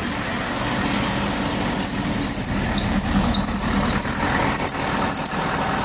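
Multi-grooved drive belt of a hydraulic pump slipping on its magnetic clutch pulley under about 1400 psi of load, giving a run of short, high, bird-like chirps that come quicker toward the end, over the steady running of the V8 diesel engine. The slipping points to too little belt tension, which the mechanics put down to the spring tensioner.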